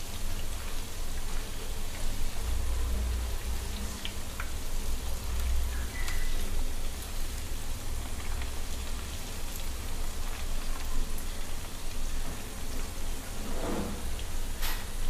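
Batter-coated cauliflower florets frying in hot sunflower oil on a medium flame, giving a steady crackling sizzle. A few sharper clicks and knocks come as a spatula turns the pieces in the pan, the loudest of them near the end.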